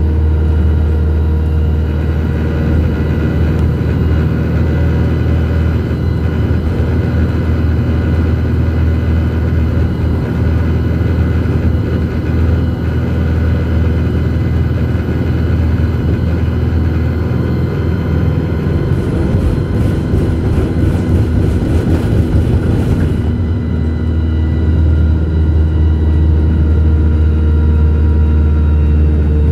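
Alexander Dennis Enviro200 single-deck bus driving at a steady speed, heard from inside the cabin: a steady low engine drone with road and tyre noise. A run of quick ticks comes about two-thirds of the way through.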